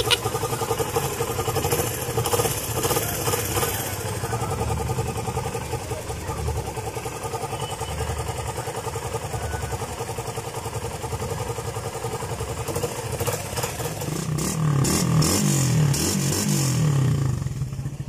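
2011 Suzuki Raider R150's single-cylinder four-stroke engine idling steadily, running very quiet for its age, which the owner credits to good upkeep. It gets louder for a few seconds near the end.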